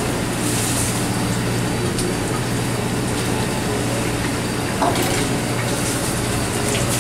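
A fishing boat's engine droning steadily under a wash of water noise, with a brief knock about five seconds in.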